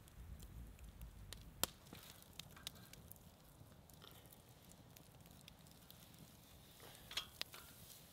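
Faint crackling of a wood campfire under a grill, with a sharp pop now and then, and a quick run of light metal clicks near the end as tongs work the fish on the steel grate.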